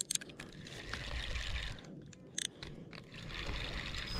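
Spinning reel being cranked: a soft rustling whir in two spells, with a few small clicks, over low wind rumble on the microphone.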